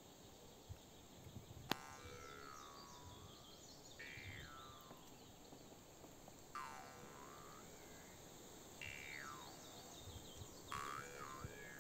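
Faint songbird song: a clear whistled phrase that slides down in pitch, repeated about five times every two seconds or so, with higher twittering from other birds. A single sharp click comes just under two seconds in.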